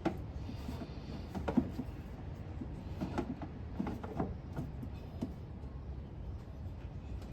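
Scattered knocks and clicks of hand tools and metal parts being handled during an alternator swap, the sharpest about a second and a half in, over a steady low rumble.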